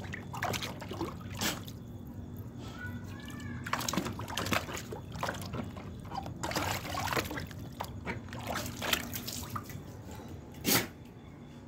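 Bhotia dog pawing and splashing in a plastic tub of water: irregular sloshes, splashes and trickles, with one louder sharp burst near the end.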